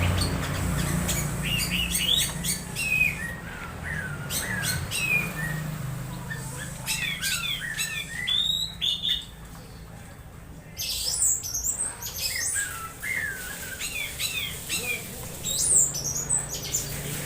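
Orange-headed thrush giving a string of odd, squawky calls: short twisting whistled notes and sharp clicks in quick bursts, with a brief pause about two-thirds of the way through.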